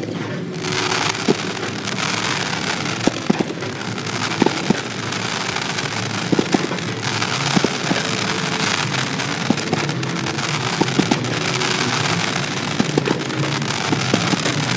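Mid-level aerial fireworks going off: a dense, steady hiss and crackle that swells up about half a second in, broken by frequent sharp pops and bangs at irregular intervals.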